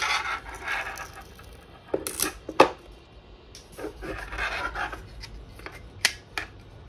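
Hands handling a 3D-printed plastic glasses frame: a sharp click at the start, plastic rubbing and scraping, and a few more sharp clicks and knocks as the frame is worked and set down on the desk and picked up.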